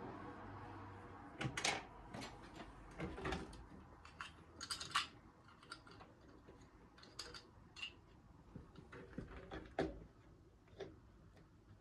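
Irregular clicks, taps and short rattles of small hard computer parts being handled and fitted, a few sharper clicks standing out.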